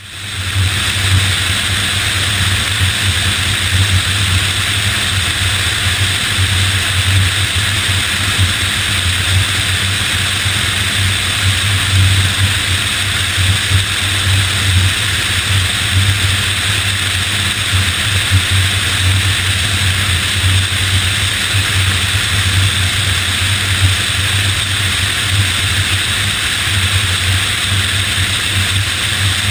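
Steady engine and airflow noise of a C-5 Galaxy jet transport aircraft: an even hiss over a deep, unbroken hum, with no rise or fall.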